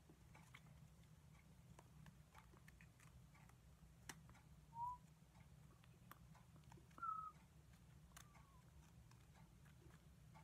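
Near silence with faint scattered clicks of basket reed being bent and tucked by hand. Two short high chirps stand out about five and seven seconds in, with a fainter falling one just after.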